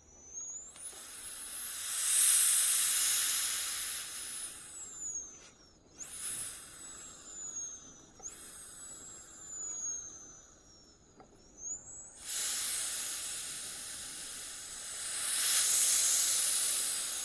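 A turbo-style whistle, which the uploader suspects is fake. A thin, high whistle sweeps up quickly and then falls slowly, three times. Between the sweeps come long rushes of hiss: one builds about a second in and fades, and a louder one starts about twelve seconds in and lasts to the end.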